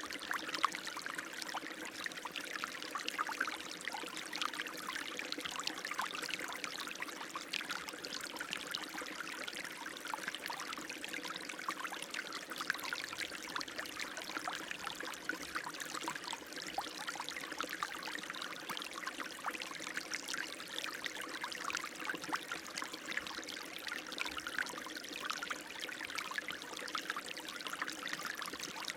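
Running water splashing steadily, a continuous trickle and patter of many small splashes with no pauses.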